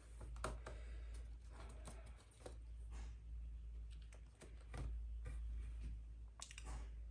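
Irregular light clicks and taps of hands handling a cricket container, over a low steady hum.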